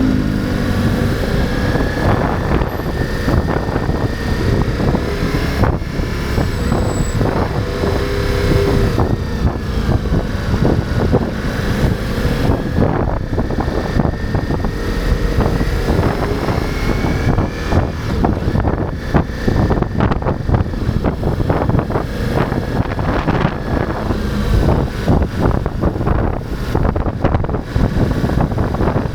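Ducati Multistrada V4's V4 engine running under way, its revs rising and falling, with wind buffeting the microphone.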